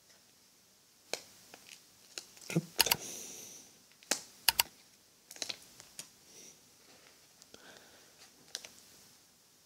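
Backing paper being peeled off a clear Tenacious Tape adhesive repair patch as it is handled: scattered sharp clicks and crackles, with a few louder snaps about three and four and a half seconds in.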